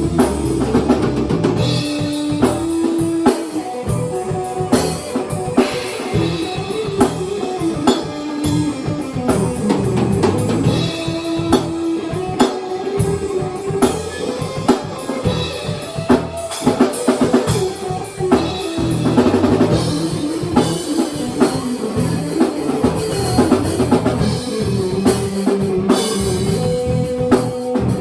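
A small band jamming live: a drum kit keeps a steady beat, with frequent hits, under held melodic notes from another instrument.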